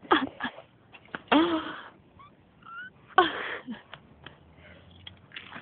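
A person's voice in two short, breathy, wordless bursts, about a second and a half apart, with small clicks and handling noise between them.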